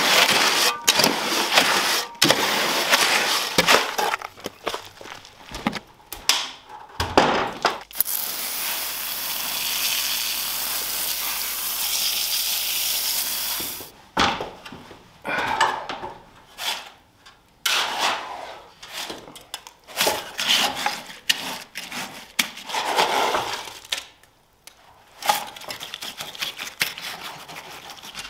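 Hand tools scraping and knocking while a small batch of stiffened concrete is worked into a pad form: a run of short clinks and scrapes, with a steady rushing noise for about six seconds in the middle.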